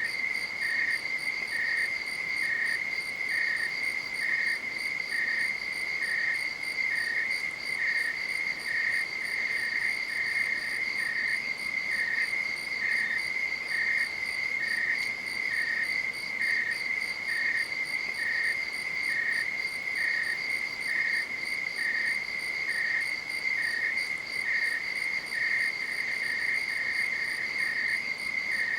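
Night insects calling: a continuous high, rapidly pulsing trill, with a second insect chirping at an even pace of about one and a half chirps a second just below it.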